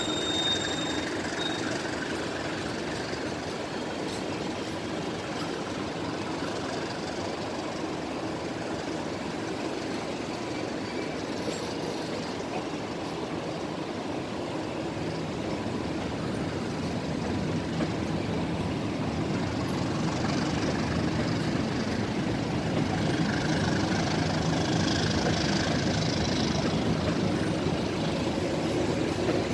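Economy-class passenger coaches of a departing train rolling past on the rails, a steady rumble of wheels on track. A high wheel squeal fades out in the first second or so, and the rumble grows gradually louder as the train picks up speed.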